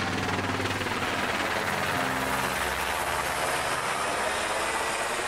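Black Hawk helicopter flying overhead, its rotor and turbine noise steady.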